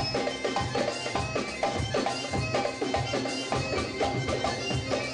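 Live Middle Eastern band music: a reedy wind instrument carries the melody over a quick, steady drum beat, with the band's zither and strings behind it.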